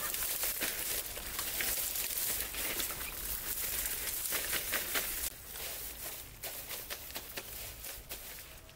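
Dry, dead plant stalks and seed heads crackling and rustling as gloved hands gather and press them together on a sheet. The crackling is dense for about the first five seconds, then thins to scattered crackles.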